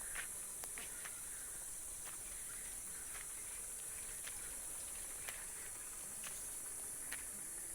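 A steady high-pitched insect drone, with soft, irregular footsteps crunching on dry ground.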